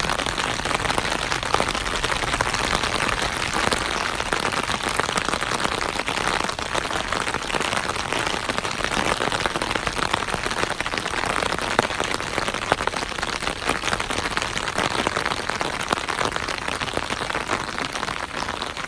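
Heavy downpour: a steady hiss of rain with a dense patter of drops striking hard surfaces.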